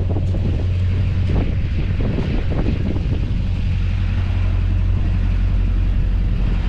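A vehicle engine idling steadily with a low hum, and a few light knocks in the first few seconds.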